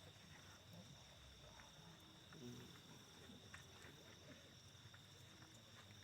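Faint, steady high trilling of night insects such as crickets, with a faint low murmur of voices in the background.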